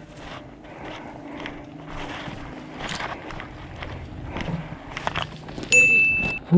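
Footsteps and gear rustling with irregular soft knocks as a player moves along a trench. Near the end there is a loud, steady high-pitched tone lasting under a second.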